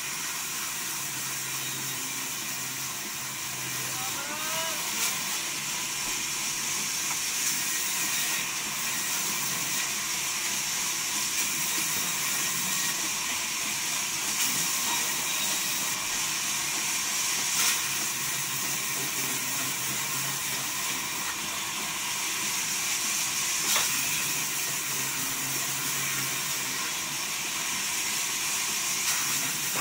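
Large vertical band saw running and ripping a timber plank, a steady high hiss, with a few short knocks of the wood on the table.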